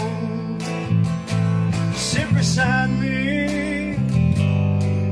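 Country-rock song: a man singing over a strummed guitar, with a steady bass line beneath.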